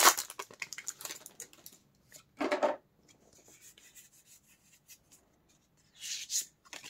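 A just-opened Pokémon card booster pack being handled: the foil wrapper crinkling and the cards sliding and rubbing against each other. It comes in short rustles, with a louder one about two and a half seconds in and another near the end.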